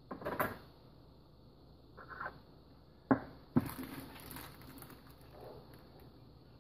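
Plastic zip-top bag of crushed pomegranate seeds rustling and crinkling as it is handled, with two sharp knocks on a wooden cutting board about half a second apart a little past midway, the loudest sounds.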